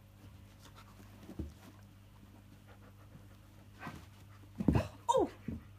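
Alaskan Malamute's play noises: a soft thump, then several loud breathy huffs about four seconds in and a short vocal sound falling in pitch near the end.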